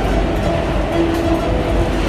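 Subway train running on the tracks, a loud steady rumble, with a few plucked harp notes heard over it.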